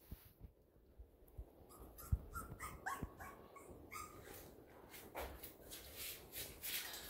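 Cavalier King Charles Spaniel puppy whimpering and yipping in a few short high-pitched cries during the first half, followed by rustling.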